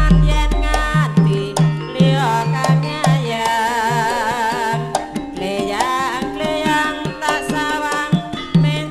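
Javanese gamelan playing tayub dance music: kendang hand drums beat a regular pattern under sustained metallophone tones. A female singer's wavering vocal line rises above it about halfway through.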